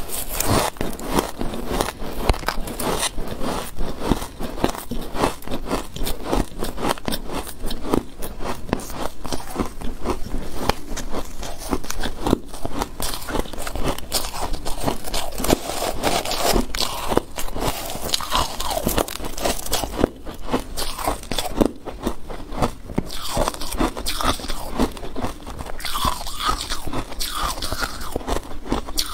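Close-miked biting and chewing of compacted shaved ice: a dense, continuous crunching of ice grains breaking between the teeth.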